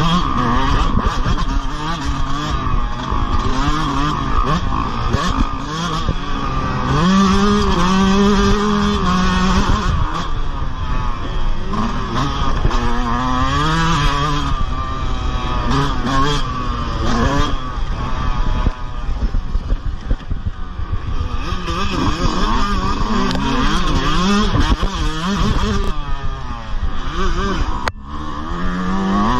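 Yamaha motocross bike's engine revving under racing load, its pitch climbing and dropping again and again through gear changes and throttle chops. There is a brief dip in the sound near the end.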